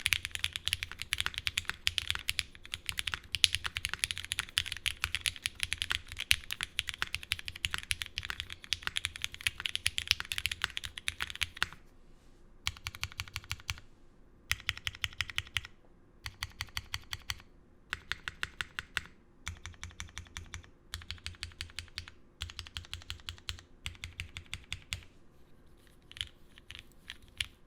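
Mechanical keyboard being typed on: an F1-8X 722 with lubed, filmed Cherry Hyperglide MX Black linear switches on a gasket-mounted aluminium plate, under GMK keycaps. Fast continuous typing for the first twelve seconds or so, then short bursts of rapid keystrokes about a second long with brief pauses between them, thinning to scattered keystrokes near the end.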